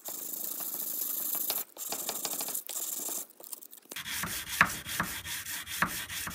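Oiled sandpaper rubbed by hand back and forth along a steel knife blade during finish sanding. It is a steady hiss at first, broken by a few short gaps, then from about four seconds in a regular run of scraping strokes, about three a second.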